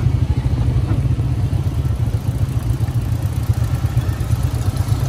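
Motorcycle engine running steadily at low speed, a fast even low pulsing, as the bike creeps through mud.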